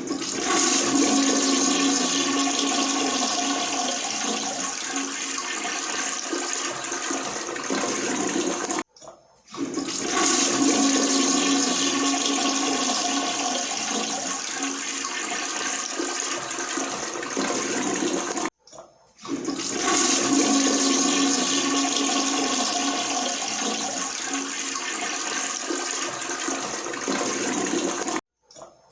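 Toilet flushing three times in a row: each flush is a loud rush of water with a steady hum under it that eases off slowly over about nine seconds, then stops with a short break before the next.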